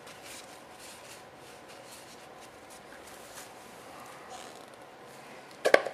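Sheet of paper being torn and folded by hand: soft rustling and faint crinkles, then a short, loud crackle near the end as it is creased.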